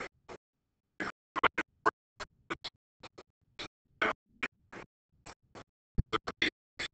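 A man's speech broken up into short, choppy fragments with dead silence between them: the audio track is dropping out, leaving only clipped bits of the voice.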